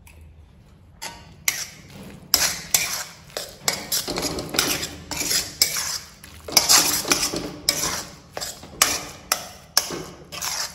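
Flat metal spatula scraping and knocking against a metal kadhai as crumbly kalakand mixture is stirred, in quick, uneven repeated strokes that start about a second in.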